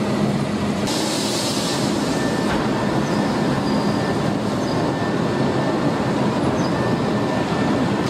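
Steady, dense machinery noise of a steel foundry hall, with a faint steady hum running through it.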